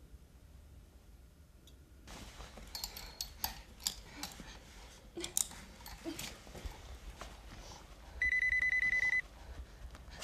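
Scattered knocks and rustles of movement, then about eight seconds in a telephone rings once: a loud electronic trill lasting about a second.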